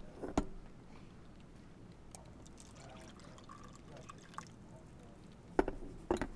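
Coffee poured from a glass coffee-maker carafe into a paper cup. There is a knock about half a second in, and a few louder knocks near the end as the carafe is set back on the coffee maker's warming plate.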